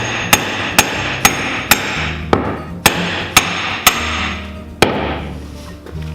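Hammer blows on metal with a bright ring, about nine strikes at roughly two a second, the last one about five seconds in and then ringing away. Background music runs underneath.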